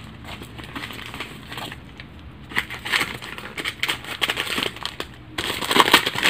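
Plastic packaging crinkling and rustling in irregular bursts as it is handled and pulled open by hand, getting busier and louder about five seconds in.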